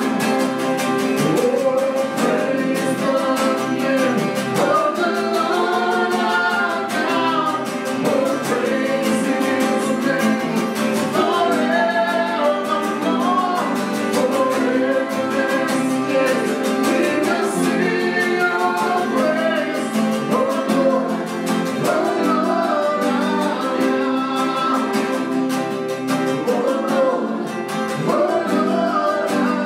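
A worship song sung to strummed acoustic guitar accompaniment.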